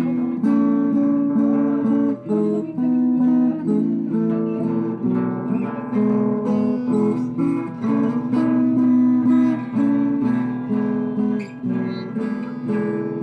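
Viola caipira (Brazilian ten-string guitar) playing an instrumental introduction: a plucked melody over strummed chords, with no voice yet.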